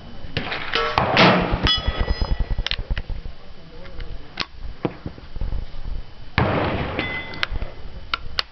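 Handling noise from an 1884 Springfield trapdoor rifle: knocks and clicks with short metallic rings. A loud burst of noise comes about a second in, and a second, smaller one with ringing about six seconds in.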